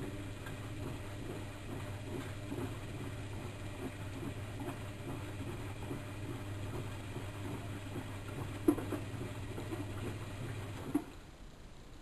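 Bauknecht WAK7760 front-loading washing machine turning its drum: a steady motor hum with soft knocks and clicks from the laundry tumbling. There is a sharper click a little before the end, and the motor stops with a click about eleven seconds in as the drum pauses.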